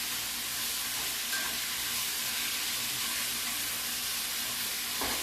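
Beef strips frying in a hot pan with stir-fry sauce just added, a steady sizzle as they are stirred. There is a faint knock near the end.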